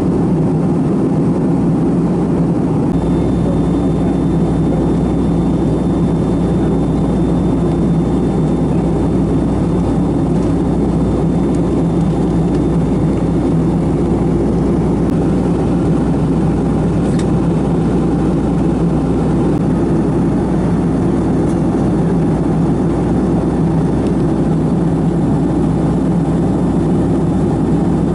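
Steady drone of a Boeing 757-200's jet engines and rushing air heard inside the passenger cabin in flight. About three seconds in, a deeper low hum and a faint high whine come in and hold steady.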